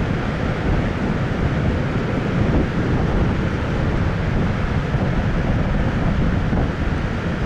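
Heavy ocean surf from high post-typhoon waves, a steady, loud wash and rumble with wind buffeting the microphone.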